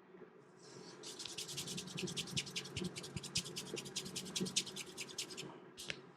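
Hands working a massage with rapid, even scratching strokes, about eight a second, lasting some four and a half seconds, followed by a single sharp click near the end.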